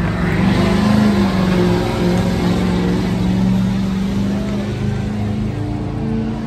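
Heavy diesel engine running loud and steady, its pitch shifting slightly now and then.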